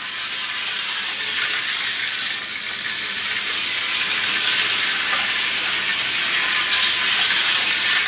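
Hornby Dublo three-rail Bo-Bo locomotive running on its metal track: a steady rattling hiss of wheels and motor, growing louder near the end as it comes close.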